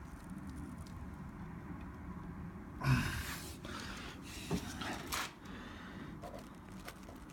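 Light workshop handling noises: a short breathy rustle about three seconds in, then a few light clicks of a spanner on the brake bleed nipple as it is closed off.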